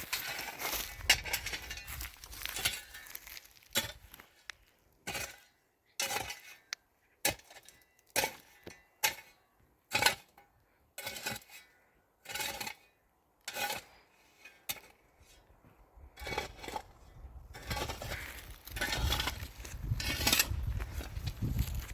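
A series of separate sharp clinks, hard objects knocking together about once a second, with busier handling noise before and after them.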